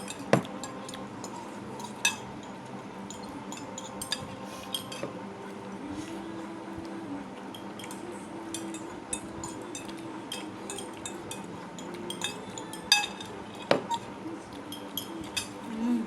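Cutlery clinking and scraping against a plate as noodles are eaten, with many small clicks and a few sharper clinks.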